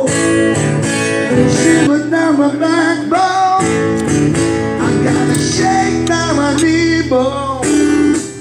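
Background music: a strummed acoustic guitar with a singing voice.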